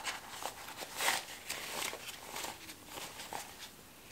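Rustling and scuffing of a white drawstring pouch being untied and pulled open by hand, with a string of short rustles, the loudest about a second in.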